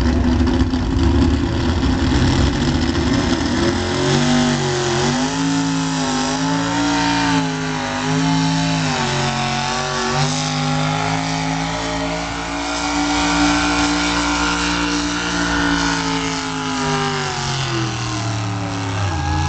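A two-wheel-drive pickup truck's engine running hard in a truck pull. Its pitch rises and dips in waves, then holds high and falls away near the end as the throttle comes off.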